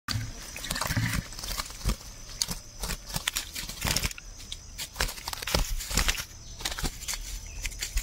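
Freshly caught fish flopping on grass: irregular wet slaps and rustles at uneven intervals, over a steady high insect trill.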